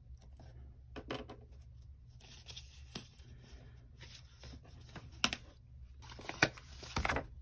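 Paper and stationery being handled and rummaged through on a desk: rustling in patches with a few sharp clicks and taps, the loudest near the end, over a low steady hum.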